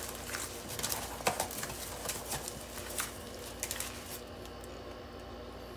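Cardboard shipping box being opened by hand: its flaps pulled back and handled, giving a string of short crackles and scrapes that thin out after about four seconds.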